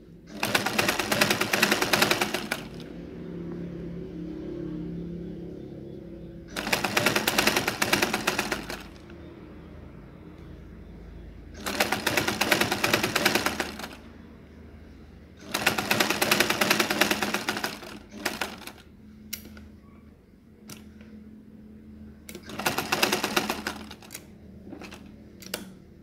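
Black classic-style sewing machine stitching in five short runs of about two seconds each, with quiet pauses between them. A few sharp clicks come near the end.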